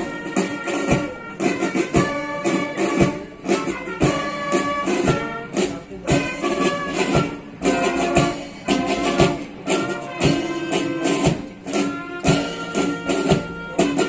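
A school cadet band playing: a steady drum beat under a melody on brass and woodwind instruments.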